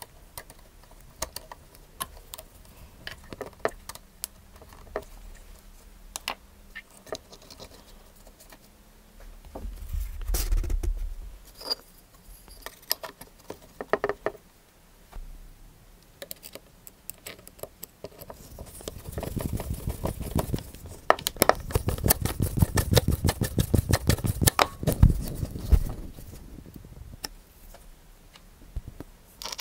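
Scattered small clicks and taps of a screwdriver and metal parts being handled while a corded drill's switch and aluminium handle are reassembled. In the second half there is a denser stretch of rapid scraping and knocking.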